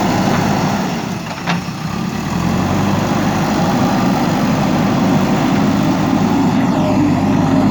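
Diesel engine of a JCB 3DX backhoe loader running steadily, with one short sharp click about a second and a half in.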